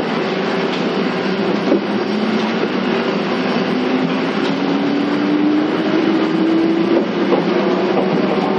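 Onboard running sound of a 485 series EMU motor car: the traction motor whine slowly rises in pitch over about five seconds as the train gathers speed, over the steady rumble of wheels on rail, with a few sharp rail-joint clicks.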